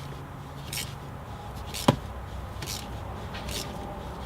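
Ratchet wrench worked in short strokes, about two a second, tightening the shifter linkage clamp bolt down onto the rod, with one sharp metallic click about two seconds in.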